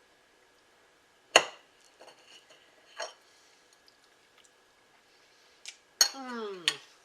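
Cutlery clinking on a plate: one sharp clink about a second in and a softer one about three seconds in. Near the end comes another clink and a short vocal 'mmm' that falls in pitch, an appreciative reaction while eating the pie.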